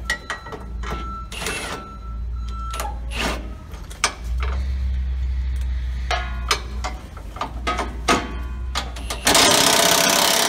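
Hand tools clicking and knocking against metal as a truck's driveshaft center support bearing is changed, over a steady low hum. Near the end a loud hiss lasts about a second and a half.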